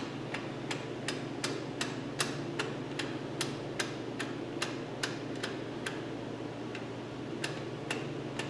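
Self-adjuster lever on a 1967 Mustang's rear drum brake clicking the star-wheel adjuster round one tooth at a time as the adjuster cable is pulled over and over: an even run of sharp clicks, about two or three a second, over a low steady hum. The adjuster is being lengthened to take up slack in loose brake shoes.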